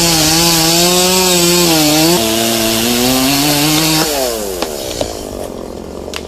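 Chainsaw running at high revs as it cuts, its pitch stepping up slightly about two seconds in. About four seconds in the throttle comes off and the engine note falls away. A quieter stretch follows, with a few sharp clicks.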